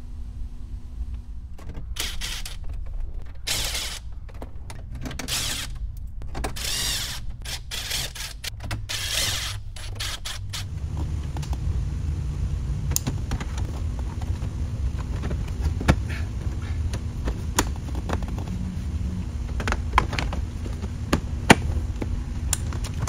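Plastic dash trim panels of a 2009 Cadillac Escalade being refitted by hand. At first there are several short bursts of scraping and rustling as parts slide into the dash. After that come a series of sharp clicks as the bezel and trim strips snap into their clips, over a steady low hum.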